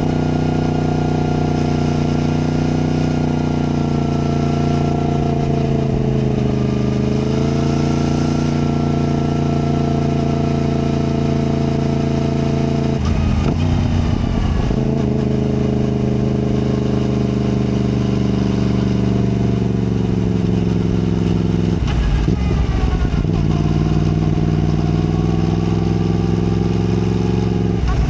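Yamaha MT-10's crossplane inline-four engine running steadily under the rider, its note holding even for long stretches. Twice, about thirteen and twenty-two seconds in, the note briefly breaks up and then climbs back.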